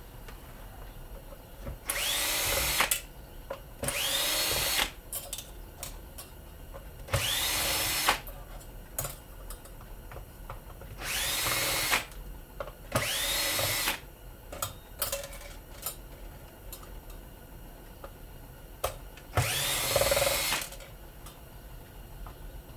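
A power drill-driver run in six short bursts of about a second each, its pitch rising as it spins up each time, backing out screws during a tear-down. Small clicks and taps from handling the parts come between the bursts.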